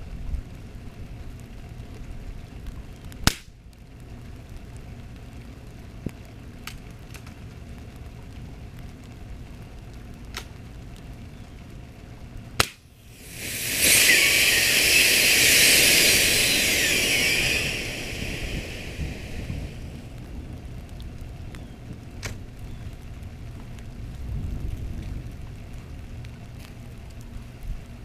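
Two sharp cracks from a break-barrel pellet gun, about nine seconds apart. Right after the second, a puffed lithium-polymer (LiPo) battery pack, pierced by the pellet, vents with a loud fizzing hiss for about four seconds, then goes on quieter as it smokes.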